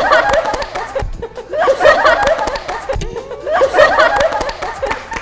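A group of young women laughing in repeated bursts of giggles and chuckles.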